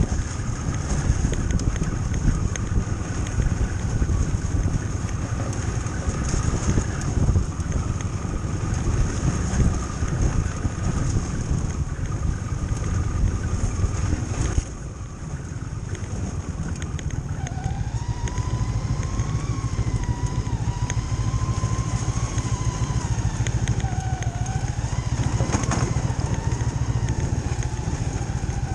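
Ski-Doo snowmobile running along a snow trail, its engine and track giving a steady low drone. Midway the level dips briefly as the throttle eases. A wavering whine then comes in and holds to the end.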